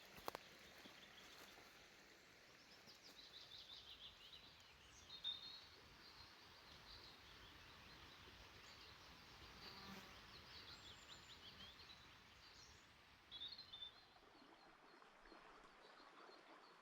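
Faint birdsong: several birds giving short trills and chirps over a light steady hiss, with the most prominent calls about five seconds in and again near the end.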